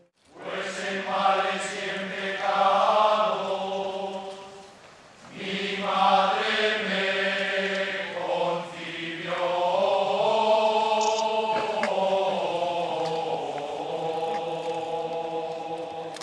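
Men's voices chanting a slow religious hymn in unison, with long held notes in two phrases and a short break about five seconds in.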